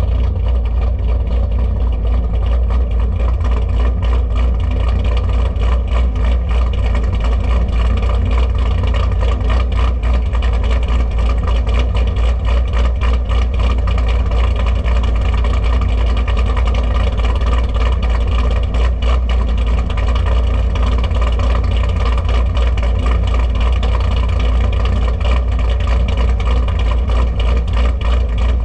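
Cammed LS3 V8 of a Holden Commodore idling loudly and steadily, with no revving.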